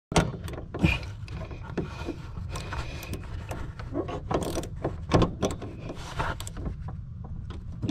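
Irregular metallic clicks, taps and knocks of hands and a wrench working the upper mounting nut onto a rear shock absorber's stud, over a steady low rumble.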